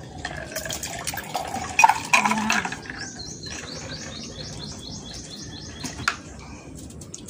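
Eating and table sounds as a pitcher of iced drink is handled, with a cluster of clinks and clatter about two seconds in. From about three seconds in, a bird chirps in a quick, even series, about four chirps a second, for some three seconds.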